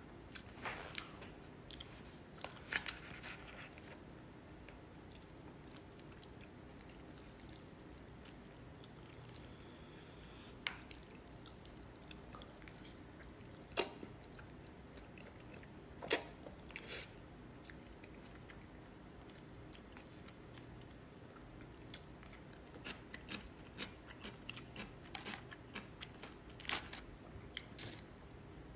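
A person eating jjajangmyeon noodles with wooden chopsticks from a plastic bowl: faint chewing, with scattered short clicks and taps of utensils and bowl.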